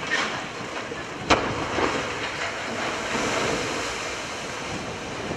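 Wind buffeting the microphone over the steady rush of sea water and waves, with one sharp knock about a second in.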